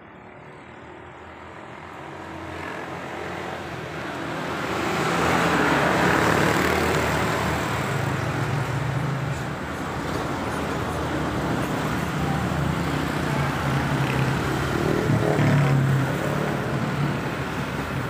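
Motor vehicle traffic noise, swelling over the first five seconds or so and then holding steady.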